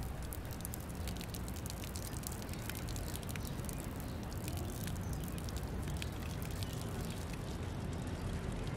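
Snowmelt water dripping and trickling from a downspout onto wet ground: many irregular, sharp drips over a low, steady rumble.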